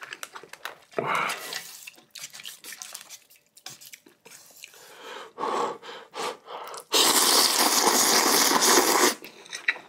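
A person eating ramen at close range: wet chewing and mouth smacks, then a loud slurp starting about seven seconds in and lasting about two seconds.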